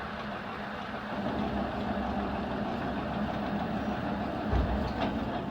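Lathe running steadily, its motor and spinning crankshaft making a constant hum, with a low thump about four and a half seconds in.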